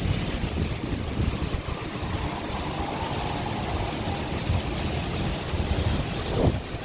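Storm wind blowing hard and buffeting the microphone in gusts, with a stronger gust about six and a half seconds in.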